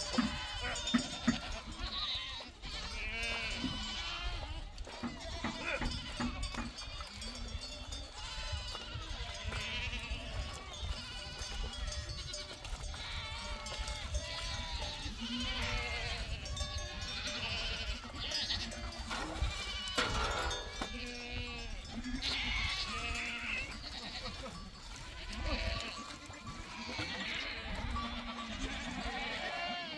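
A herd of goats bleating, many overlapping calls one after another, with a few sharp knocks at the very start.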